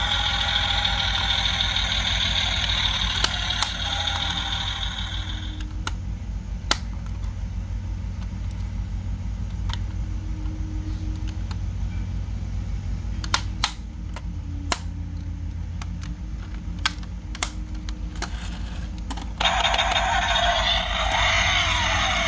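Recorded engine sound effect played through the small speaker of a Toyota Land Cruiser LC300 diecast model's light-and-sound unit. It is louder with shifting pitch at first, drops to a quieter steady idle after about five seconds, and comes back loud near the end. Sharp plastic clicks sound during the quiet stretch as the model's doors and parts are handled.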